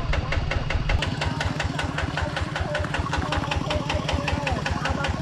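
Single-cylinder diesel engine of a two-wheel walking tractor idling, an even, rapid knock of about seven beats a second.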